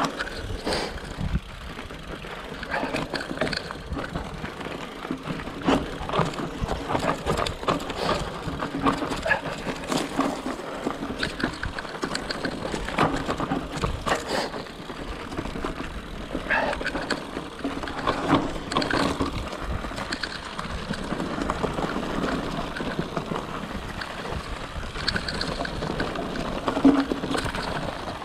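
Votec 29er mountain bike ridden down a rough trail: tyres crunching over dirt and stones, with constant irregular rattles and knocks from the bike over bumps.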